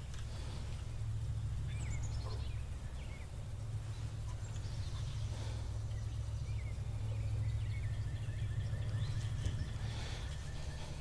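Birds calling in short, falling chirps over a steady low rumble.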